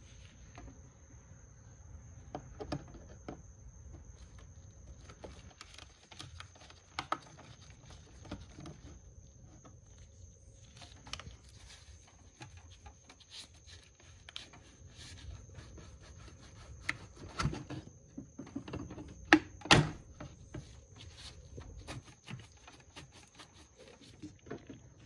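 Hand work on parts in an engine bay: irregular clicks, rattles and rubbing of plastic and rubber as the air intake tube and its hose clamp are worked loose with a screwdriver. There are sharper knocks about 17 and 20 seconds in, the second the loudest.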